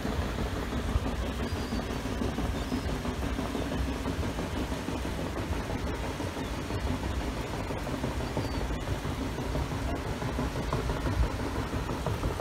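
The paddle steamer Waverley passing close by: a steady low rumble of its engine and paddle wheels churning the water.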